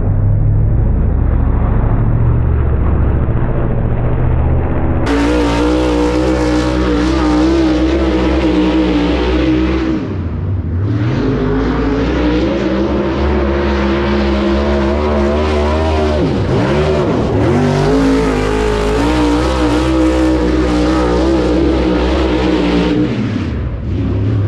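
Dirt late model race car's V8 engine running hard on hot laps around a dirt oval. The engine note drops and climbs back up several times, most sharply about ten seconds in and again midway.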